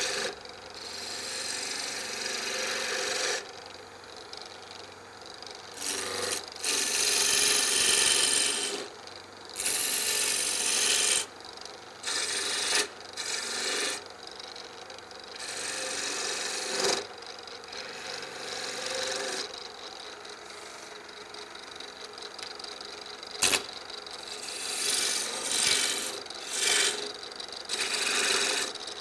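Turning tool cutting a spinning walnut blank on a wood lathe: repeated hissing passes of a second or two, with the lathe motor's steady hum between them. One sharp click comes about two-thirds of the way through.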